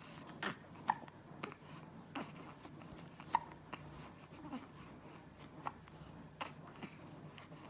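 Repeated hiccups: short, sharp catches at irregular intervals of roughly a second, the loudest a little before the middle.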